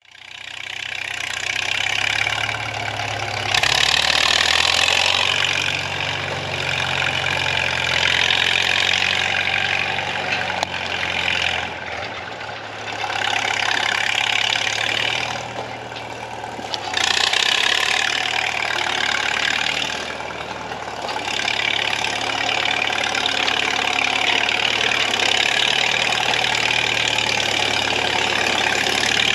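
Crawler tractor engine running, with a loud clattering hiss over it that swells and eases several times as the machine works.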